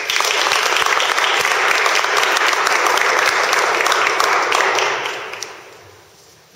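A crowd applauding. The clapping starts suddenly, holds steady, and dies away about five seconds in.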